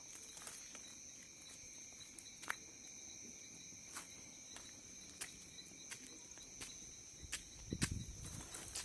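Crickets chirring steadily, with sharp crackles popping out about once a second from a freshly lit bonfire. A low rumble comes in near the end.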